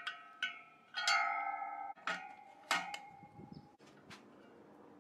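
Steel wire-spoke Ford Model A wheel clanking against metal as it is handled and fitted to a rotating paint stand: several sharp hits in the first three seconds, each ringing on like a bell, the loudest about a second in.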